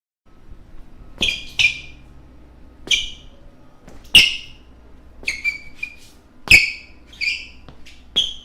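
Basketball shoes squeaking on a floor: about a dozen short, sharp, high squeaks at irregular intervals, like players cutting and stopping. Each squeak starts with a click, and there is a low background rumble.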